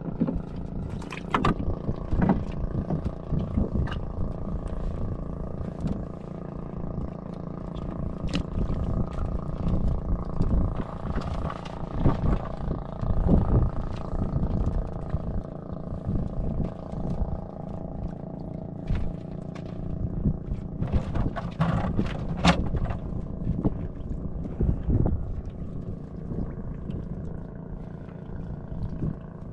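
A steady droning engine holding one constant pitch, with scattered knocks and taps over it.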